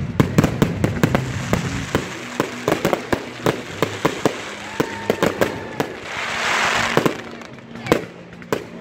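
Fireworks going off overhead: many sharp pops and bangs from bursting shells, densest in the first two seconds and then more spaced out, with a hissing swell about six seconds in.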